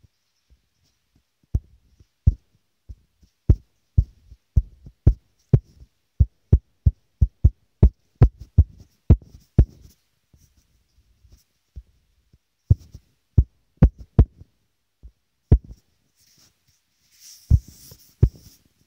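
Fingertip taps on a phone touchscreen picked up by the phone's own microphone, dotting spots onto a drawing: sharp knocks with a low thud. They come about two a second for several seconds, then as scattered single taps. Near the end there is a brief soft hiss along with two more taps.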